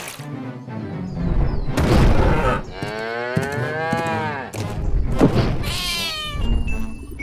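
Cartoon cow giving one long moo that rises and then falls in pitch, followed near the end by a lion cub's short high cry, over background music. A heavy thud sounds about two seconds in.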